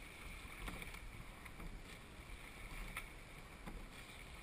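Rowing eight under way: water rushing along the hull and oar blades splashing, with a few sharp clicks from the oars and rigging.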